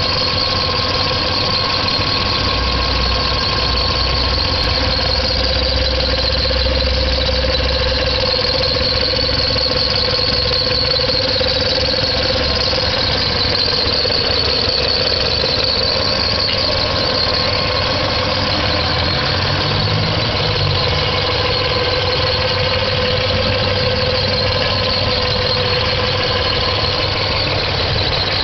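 1997 Nissan VQ V6 engine running steadily with a constant high squeal on top: the odd noise under investigation, its pitch not changing.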